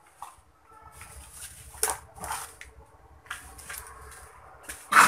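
Handling noises at a wooden workbench: scattered small clicks and rustles, with a louder knock near the end.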